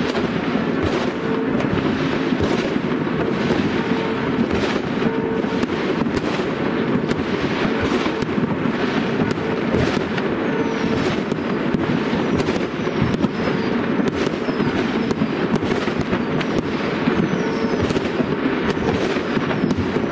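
New Year's Eve fireworks: a dense, continuous run of bangs and crackles from rockets and bursting shells, with no pause.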